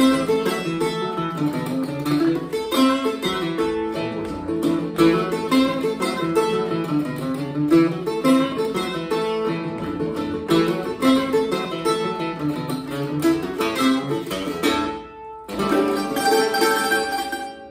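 Archtop acoustic guitar and F-style mandolin playing an old-time duet, quick picked notes over a strummed rhythm. About fifteen seconds in the playing breaks off briefly, then a final chord rings out and fades.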